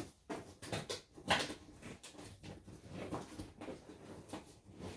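Cardboard box being torn open by hand: a string of irregular scratchy rips and scrapes, some sharper than others.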